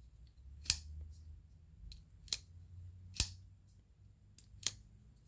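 Bestech Slasher folding knife being flicked open and shut, its axis lock snapping into place with four sharp clicks about a second apart.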